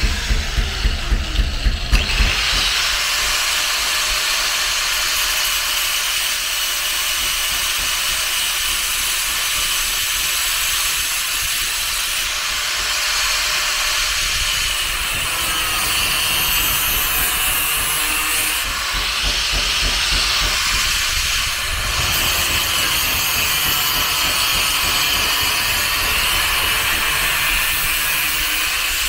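A pulsing beat for about the first two seconds, then a steady, loud hissing, rasping noise of a power tool working metal, its upper pitch shifting every few seconds.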